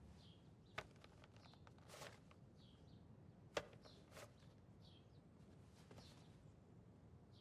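Near silence: faint ambient bird chirps, short falling notes about once a second, with a few soft clicks, the loudest about three and a half seconds in.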